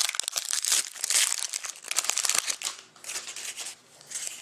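Wrapper of a trading-card pack crinkling and tearing as it is ripped open by hand. A dense crackle with sharp ticks, loudest for the first two to three seconds, then fainter crinkling.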